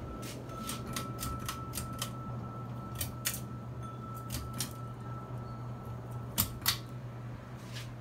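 53-inch Casablanca Lanai ceiling fan running with a steady low motor hum and a faint high whine, under irregular light clicks, two of them louder about six and a half seconds in.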